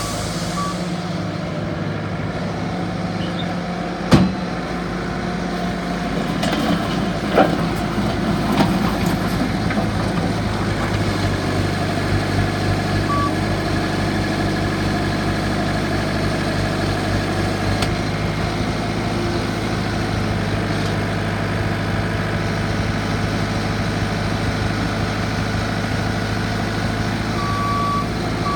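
Bobcat S770 skid steer's diesel engine running steadily, picking up a little from about six seconds in. A sharp knock about four seconds in and two lighter clanks a few seconds later; the backup alarm beeps briefly at the start, once midway, and again near the end.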